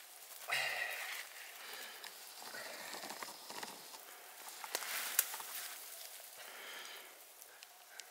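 Rustling of snow-covered spruce branches and brush, with scattered snaps and footsteps, as someone pushes through the undergrowth on foot.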